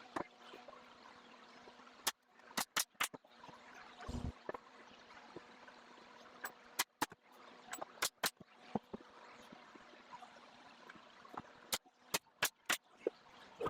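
Pneumatic narrow crown stapler firing staples into wooden trim, sharp shots in quick groups of three or four with pauses between. A dull thump comes about four seconds in.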